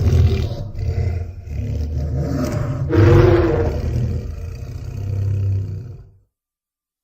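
Deep, rough dinosaur-monster roar sound effect that swells a second time about three seconds in, then dies away and stops about six seconds in.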